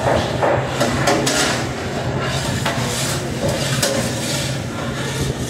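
Commercial kitchen noise: the steady drone of the exhaust hood fan, with irregular knocks, clatters and scrapes of a cook working at the line.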